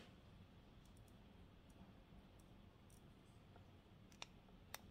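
A few small, sparse clicks from fingers handling a CIGA Design Series X Eye of Horus mechanical watch at its case and crown, with two sharper clicks near the end. Otherwise near silence.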